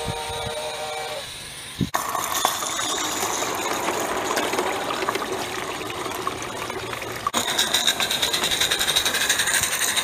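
Live-steam Accucraft Ruby locomotive's steam whistle blowing for about the first second, then stopping. From about two seconds in comes a steady hiss with rapid clattering ticks, the locomotive running under steam heard close up, growing louder about seven seconds in.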